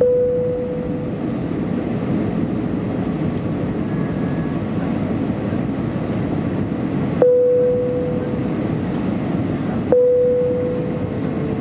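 Steady low rumble of an Airbus A320-233's cabin on its descent to land, the airflow and IAE V2500 engine noise heard inside the cabin. Three sudden ringing tones cut in over it, at the start, about seven seconds in and about ten seconds in, each fading over about a second.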